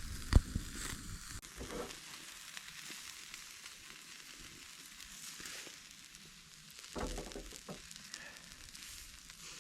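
Charcoal grill fire hissing steadily with scattered light crackles. A sharp knock comes just after the start and a duller one about seven seconds in.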